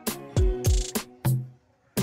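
Background music with a hip hop beat: deep kick drums dropping in pitch, sharp snare hits and sustained notes.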